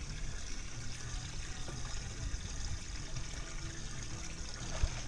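Steady trickle of water running into a boat's live well, with a low rumble underneath.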